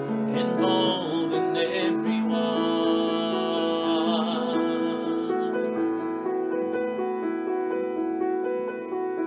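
Upright piano playing a slow instrumental passage between verses of a folk ballad. A man's sung line trails off in the first couple of seconds.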